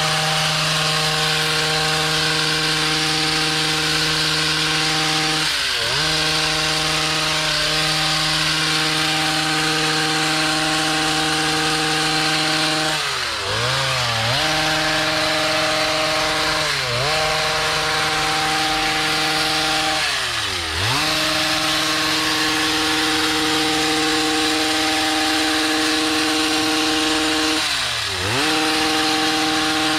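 Gas hedge trimmer's small two-stroke engine running at high revs, its pitch dipping briefly and climbing back up several times as the throttle is eased off and squeezed again.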